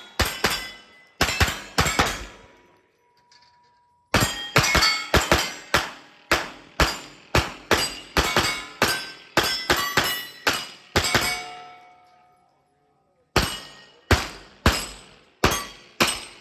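Strings of rapid shots from a Palmetto State Armory AKV 9mm pistol-caliber carbine, about two a second, each with the ring of steel targets being hit. The firing breaks off twice for a couple of seconds, a short pause after the first few shots and another later on.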